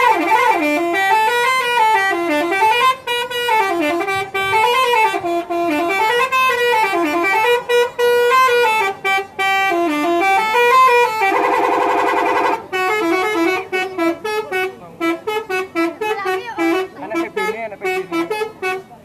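Telolet multi-tone bus horn playing a melody, its notes stepping up and down in a repeating wavy tune. About eleven seconds in comes a buzzing blast lasting just over a second, then quicker, choppier notes.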